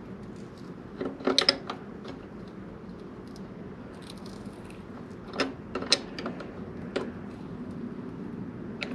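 Hand tools clicking and clinking on metal as the rear axle belt adjusters of a motorcycle are loosened: a quick cluster of clicks about a second in, then a few single clicks between five and seven seconds in, over a steady low hum.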